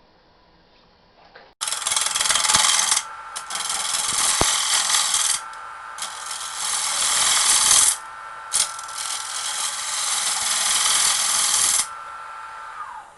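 Wood lathe turning a dried black walnut bowl blank, a turning tool cutting the spinning wood with a loud rough scraping in long passes broken by short pauses. It starts suddenly after about a second and a half, over the lathe's steady whine, which drops in pitch near the end as the lathe slows.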